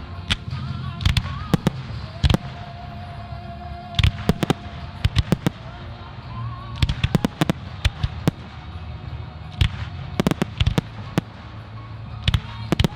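Fireworks display: many sharp aerial shell bangs, some single and some in rapid clusters of several, over music.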